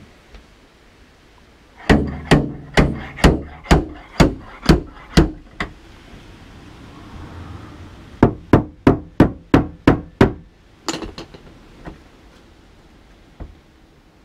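A small hammer taps on a car's steel door skin around a dent that is being pulled out with a stud-welding dent puller. There are two quick runs of sharp strikes, about two a second, nine or so in the first and seven or eight in the second, with a few softer knocks after them.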